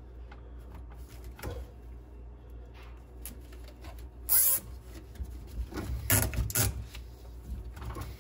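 Nylon zip tie being worked and pulled through its ratchet by gloved hands fastening a bilge pump, with rustling and scraping throughout. There is a short, loud rasp about four and a half seconds in and a few more rasps around six seconds.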